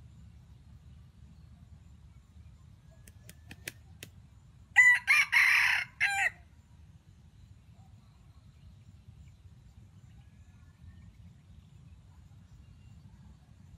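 Red junglefowl rooster crowing once, a short crow in a few linked parts that cuts off abruptly, about five seconds in. A few faint clicks come just before it.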